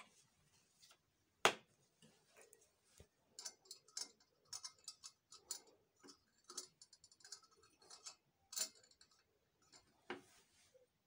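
Irregular light clicks and taps of a small metal rod being handled against a ceramic plate, with one sharper knock about a second and a half in and a busy run of small clicks in the middle.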